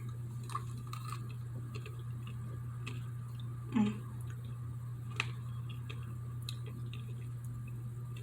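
Faint mouth clicks and soft chewing of a crunchy-shelled, chewy candy, with a brief louder mouth sound just before the middle and a sharp click a little after, over a steady low hum.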